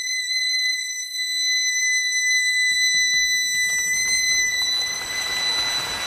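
A suona holds one long, steady, very high note. About three seconds in, scattered claps begin and swell into audience applause under the held note.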